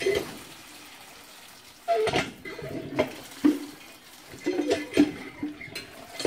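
Raw eggs being cracked against a bowl and dropped in: a few sharp cracks spaced about a second apart, with wet splashing and the clink of bowls.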